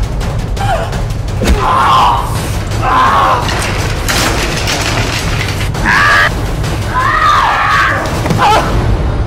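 A woman's strained, choking cries and short screams, several times, as she is throttled and pinned down. Underneath runs a loud, low booming music score with scattered thuds.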